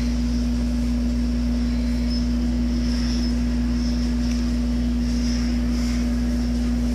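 Steady mechanical hum with one strong, unchanging low tone.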